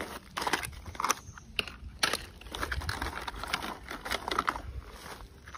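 Hard plastic toy vehicles knocking and clattering against each other while a plastic tarp crinkles under a hand gathering them from a pile, in irregular clicks and rustles.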